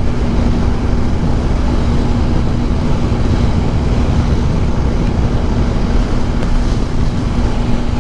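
Motorcycle riding at highway speed: wind buffeting the microphone over a steady engine drone with one even tone.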